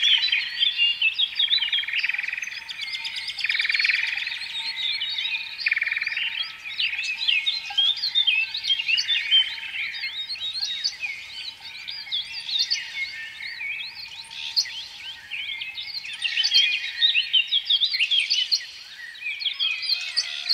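Many small birds chirping and twittering together in a dense, continuous chorus, with a faint steady tone underneath.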